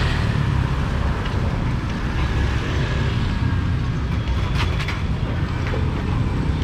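Busy street ambience dominated by a steady low rumble of passing traffic, with a few sharp clicks about four and a half seconds in.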